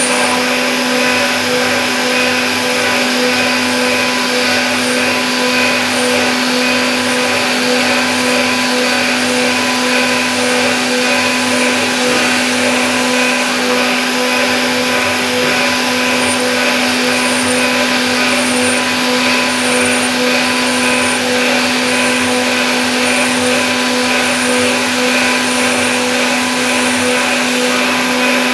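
CNC milling machine spindle running at a steady speed while a thread mill cuts a thread in a hole in a metal block: a loud, constant whine over cutting noise.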